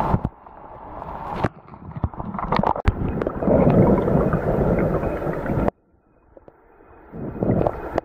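Muffled gurgling and rushing of stream water picked up by a camera held underwater, with scattered clicks and knocks. The noise cuts off suddenly about two-thirds through and comes back faintly near the end.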